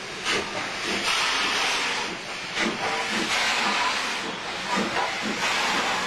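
Steam locomotive hauling a passenger train past, its steam hissing loudly with uneven exhaust beats as the engine and then the coaches go by.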